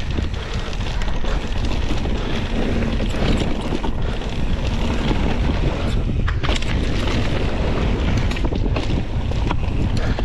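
Mountain bike riding fast down a dirt trail: a steady rumble of wind over the camera microphone and tyres on the ground, with scattered clicks and rattles from the bike over bumps.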